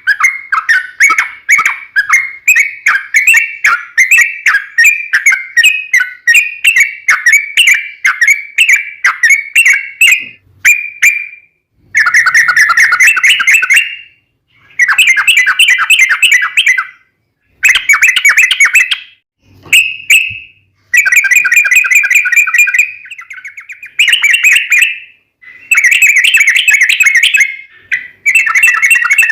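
Yellow-vented bulbul (trucukan) singing loudly. First comes a long run of quick, bubbly separate notes; then from about a third of the way in, a series of long rapid rolling trills, each a second or two long, with short breaks between them.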